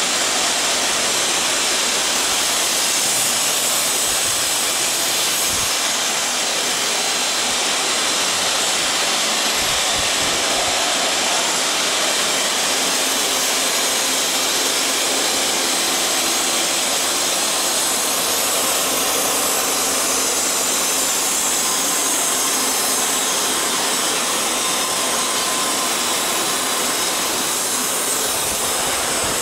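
An aluminium-profile CNC drilling-milling machine running: a steady, even machine noise, heavy in the high treble, with no breaks.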